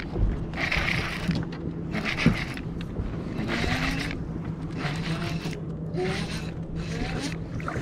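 Baitcasting reel being cranked to wind in a hooked bass, its gears turning, with short bursts of hiss about once a second. A steady low hum runs underneath.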